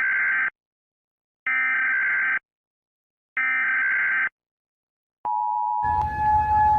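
Emergency Alert System SAME header: three identical buzzy digital data bursts of about a second each, separated by a second of dead silence. About five seconds in, a steady EAS attention tone begins, and a rough, noisy rumble joins it shortly after.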